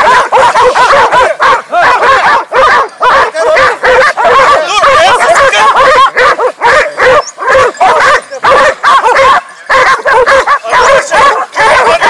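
A pack of hunting hounds barking and yelping at once, many overlapping calls without a break, as they bay at and worry a wild boar that has been shot.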